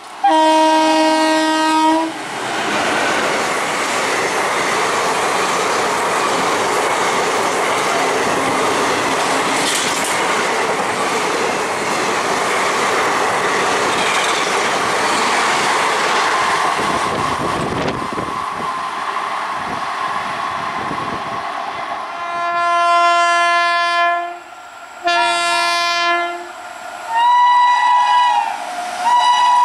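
An Indian Railways electric locomotive sounds a horn blast. A passenger train then runs past for about twenty seconds with steady wheel and coach noise. Near the end, an approaching electric locomotive gives several more horn blasts.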